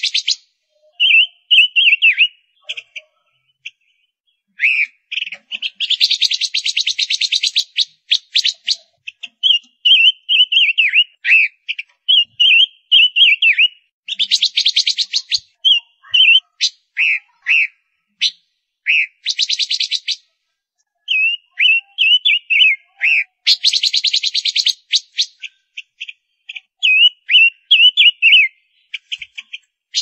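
Female silver-eared mesia calling: quick high chirps that slide up and down, broken four times by a rapid buzzy rattling trill lasting one to three seconds.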